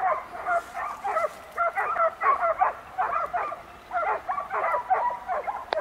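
Hunting dogs baying and yelping in quick succession, several short calls a second that rise and fall in pitch, as they chase a wild boar.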